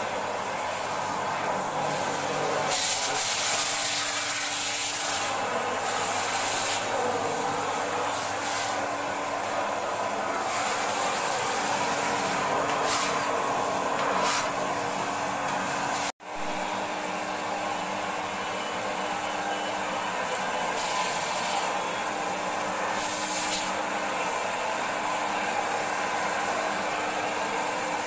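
Canister vacuum cleaner running steadily, its motor hum under the rushing hiss of suction through a long extension wand. The hiss swells at moments as the nozzle is worked along the walls and up near the ceiling, and the sound breaks off for an instant about halfway through.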